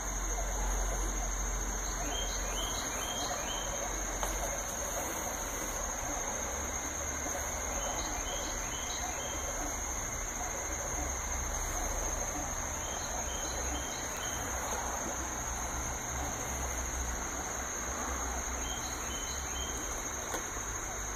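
Diode laser engraver running a burn: a steady high-pitched whine over even fan noise and a low hum, with a short run of about four quick chirps from the machine's motors roughly every five to six seconds.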